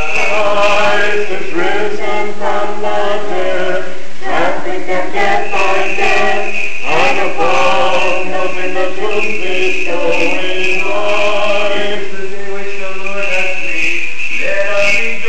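Small church choir of men's and girls' voices singing unaccompanied Orthodox liturgical chant, several voice parts sustaining notes together.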